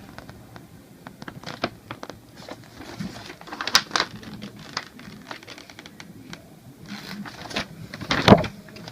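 Irregular clicks and rustles of toy packaging being handled: the paper instruction sheet and the cardboard box. A louder knock comes near the end.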